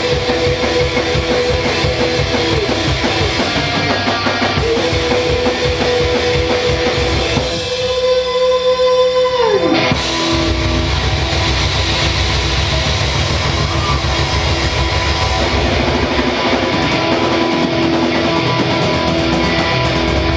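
Rock band playing live, instrumental: an electric guitar holds long notes that slide down in pitch twice, over drums.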